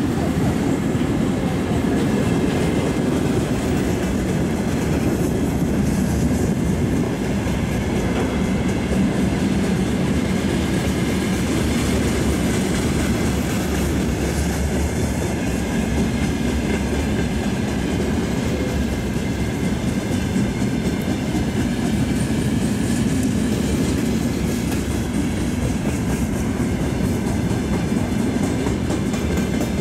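Freight train of open gondola wagons rolling past at speed: a steady rumble of steel wheels on rail, with the clickety-clack of wheels crossing rail joints.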